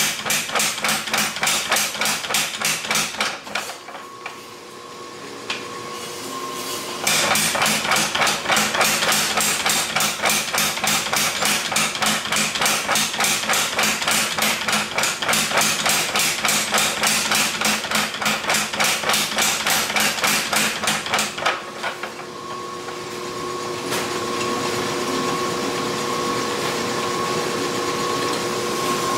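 A hammer forging the steel of a bearded axe head on an anvil, several rapid, even blows a second. The blows come in two runs: a short one at the start, then a longer one from about seven seconds in to about twenty-one seconds. In the pauses between and after the runs, a steady hum carries on.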